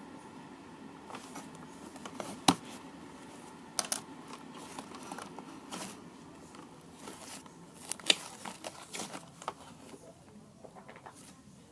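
Small objects being handled on a table: scattered sharp clicks and taps with light crinkling and rustling. The loudest click is about two and a half seconds in, with another cluster around eight seconds.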